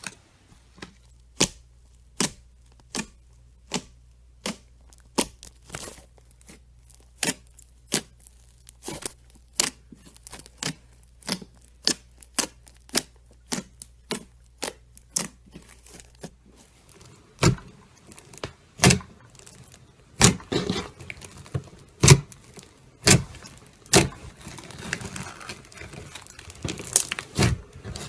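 Slime being pressed and stretched by hand, giving sharp popping clicks of trapped air about once or twice a second. After about 17 seconds the pops get louder and a crackly, crinkling sound fills the gaps.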